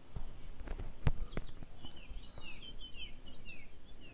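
Spatula knocking against the pan while stirring a sauté of onion and tomato, with two sharp knocks about a second in. Birds chirp in short falling notes over a steady high-pitched tone in the background.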